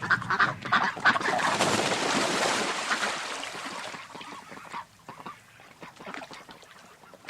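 Geese honking, many calls overlapping, loudest over the first three seconds or so and then thinning out to scattered honks.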